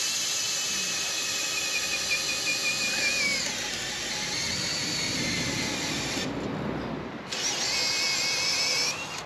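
Electric drill working into wood in two long runs with a short pause between them, its motor whine wavering and rising as it bites.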